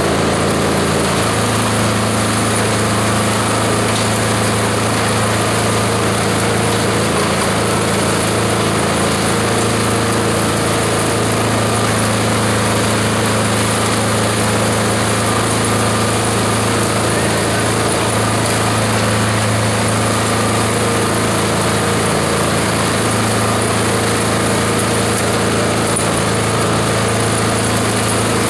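Esteban 9-in-1 multi-purpose chopper/shredder running steadily under load, shredding green plant material: a constant loud machine hum with a grinding hiss over it.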